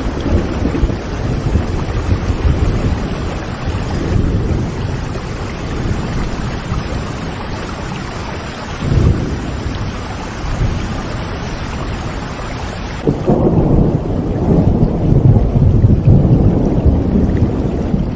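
Steady rain with rolling thunder. A rumble swells about nine seconds in, and a louder, longer thunder roll begins about two-thirds of the way through.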